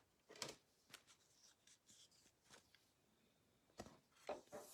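Near silence broken by a few faint soft clicks and rustles of trading cards being handled, a handful near the start and a small cluster near the end.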